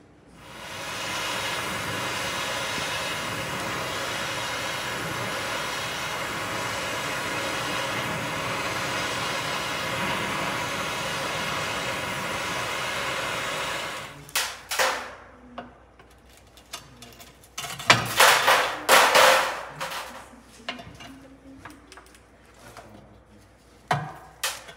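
Cutting torch hissing steadily as it burns through a rusted steel airbag support, then stopping about 14 seconds in. A run of sharp metal clanks and knocks follows, loudest a few seconds later.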